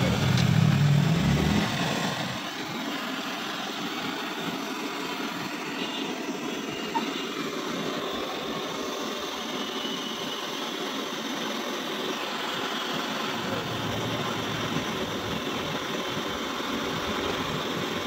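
Steady hiss of a gas brazing torch flame playing on a refrigerator's refrigerant line joint as it is brazed. A louder low rumble is heard in the first two seconds.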